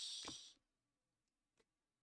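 Near silence: a spoken word trails off in a short hiss in the first half-second, then room tone with one faint tick about one and a half seconds in.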